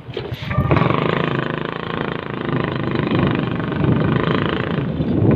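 A motor vehicle's engine running, with road noise, heard from on board while it is moving. The noise jumps louder about a second in.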